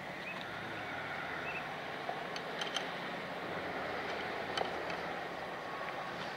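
Steady background noise with a few faint ticks and taps as a paper envelope is pushed into the slot of a post box.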